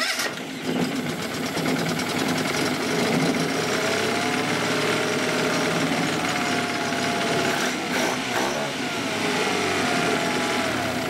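Honda 15 hp four-stroke outboard motor running in a test tank. It is revved up and down a couple of times on the tiller throttle, so its pitch rises and falls.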